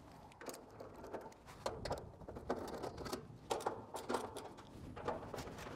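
Irregular clicks, taps and short metallic rattles from the sheet-metal access panel of a heat pump's outdoor unit as its screws are undone and the panel is worked loose.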